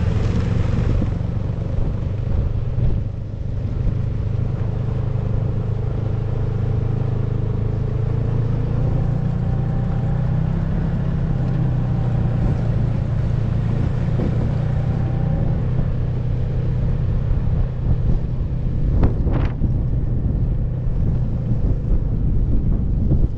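Snowmobile engine running with a steady low drone. A few sharp knocks come near the end.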